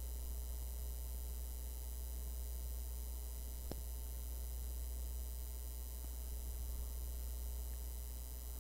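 Steady low mains hum on the recording, with a single computer mouse click a little under four seconds in.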